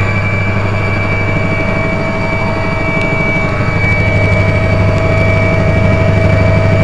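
Mi-2 helicopter's twin turboshaft engines and rotor heard from inside the cabin in flight: a loud, steady low drone with two steady whines above it.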